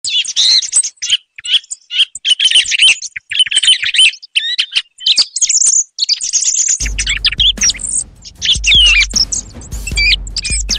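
Song thrush vocalizing: quick runs of varied high notes in phrase after phrase with short gaps, a recorded lure call used to draw thrushes in for hunting. A low steady hum joins about seven seconds in.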